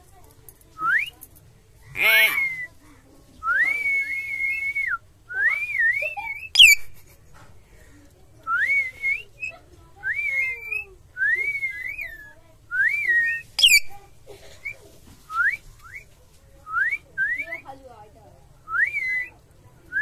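Common hill myna whistling: a string of clear whistled notes, each a quick upward sweep, some held briefly and then dropping away, about one a second. Twice a note shoots up into a very high, shrill squeak.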